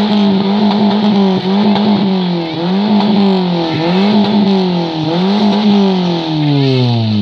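Volkswagen Golf cabriolet's engine revved hard through its tuned exhaust, the pitch climbing and dropping in about five repeated rev blips, roughly one a second, then falling back toward idle near the end; the engine is being revved for an exhaust sound-level (decibel) test at the tailpipe.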